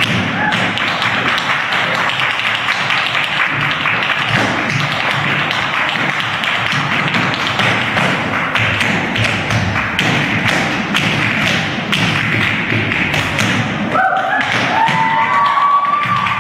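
Tap shoes striking a stage floor in fast, dense rhythms as dancers trade eights, with music behind them. Near the end a short high-pitched call rises and then holds.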